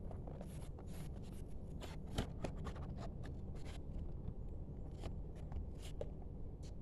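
Packaging being handled and opened: a run of crinkling, rustling and scraping, with scattered clicks, busiest in the first few seconds and picking up again near the end, over a steady low hum.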